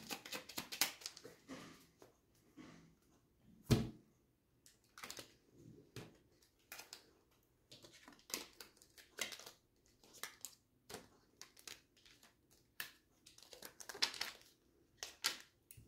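Oracle cards being handled and shuffled: irregular dry rustles and clicks, with one louder knock about four seconds in.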